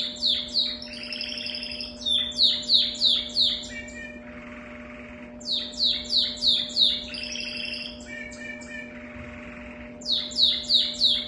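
Domestic canary singing: phrases of loud, quick falling whistled notes, about three a second, alternating with softer buzzy rolling trills, the pattern coming round every few seconds.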